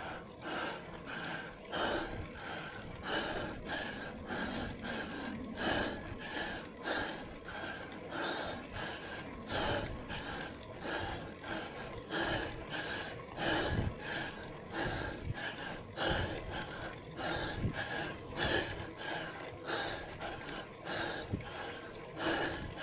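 A cyclist breathing hard and rhythmically, gasping in and out about twice a second under heavy climbing effort.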